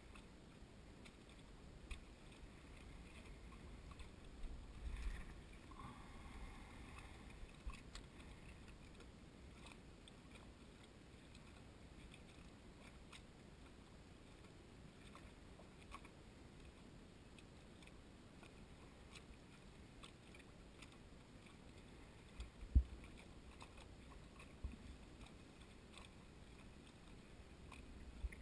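Quiet lakeside ambience of small waves lapping at a dock, with a few soft knocks and one sharper thump about two-thirds of the way through.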